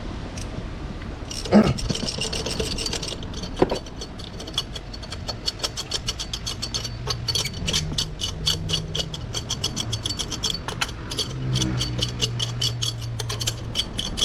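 Hand ratchet wrench clicking in quick runs, about five or six clicks a second, as a spark plug is worked out of a Proton Saga engine, after a couple of knocks from the tool at the start.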